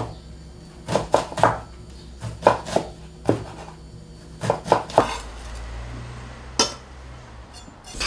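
Chef's knife dicing an onion on a wooden cutting board: irregular chopping strikes, one to three a second. After about five seconds the chopping stops and a low steady hum with a single click takes over.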